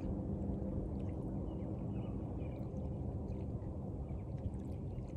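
Lakeside ambience: a steady low rumble with a faint hum and light water sounds.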